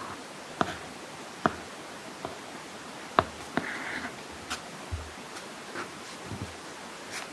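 Apple Pencil tip tapping on an iPad screen fitted with a matte paper-like protector: scattered short, sharp taps about one every half second to second, with a brief scratchy stroke about three and a half seconds in.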